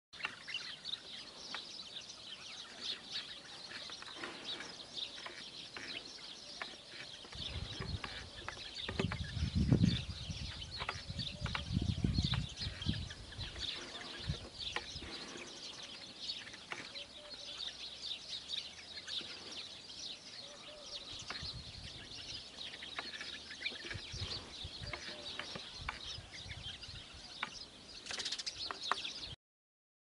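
Many small birds chirping and calling in a dense, continuous chorus. Low rumbling bursts come in from about eight to thirteen seconds in, and the sound cuts off suddenly near the end.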